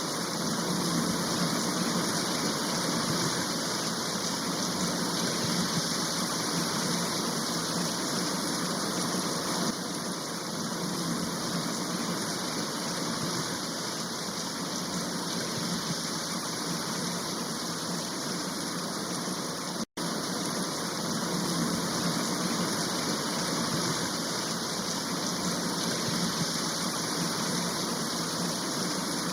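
Steady, even rush of falling water, with a momentary break about two-thirds of the way through.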